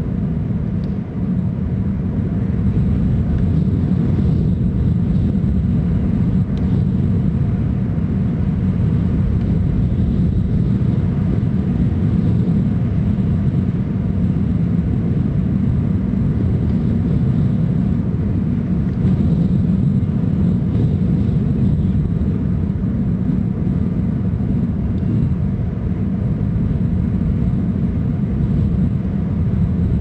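Steady low rumbling noise with no distinct events, picked up by an outdoor wildlife camera's microphone.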